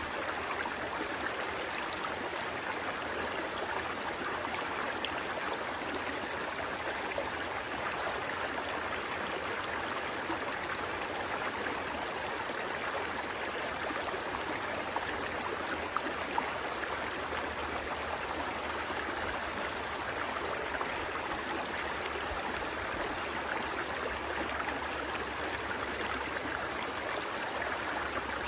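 Flowing water running steadily, with a couple of faint ticks about halfway through.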